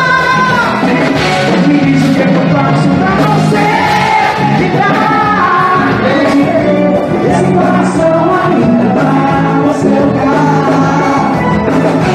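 Live forró band music played loud through a PA, with a man singing lead into a microphone.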